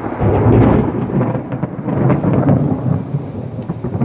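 Rolling thunder that builds to its loudest about half a second in, then rumbles on. Light rain runs underneath.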